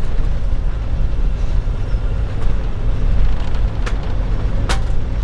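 Steady low rumble inside the cabin of a Boeing 747-400 airliner, with two sharp clicks near the end, the second louder.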